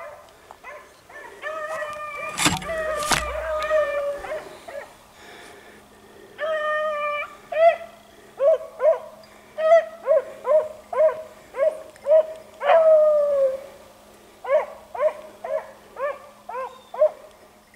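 Beagles baying, drawn-out howling calls broken up by runs of short, quick barks at about two a second. Two sharp knocks come about half a second apart a few seconds in.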